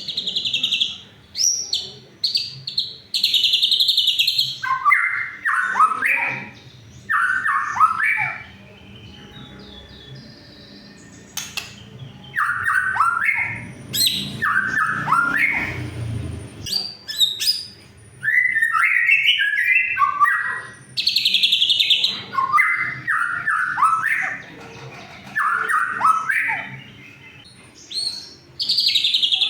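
White-rumped shama (murai batu) singing loud phrases of fast, repeated whistled and chattering notes, separated by short pauses, with a longer lull about ten seconds in. This is song used as a provocation lure to stir a silent shama into singing. A low rumble is heard briefly in the middle.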